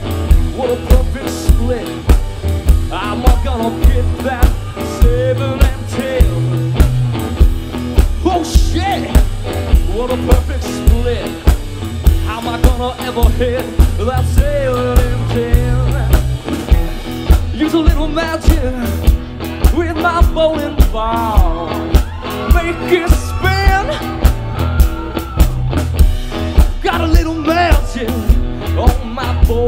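Live rock band playing with a male lead singer: drum kit keeping a steady beat under electric guitar and the sung melody.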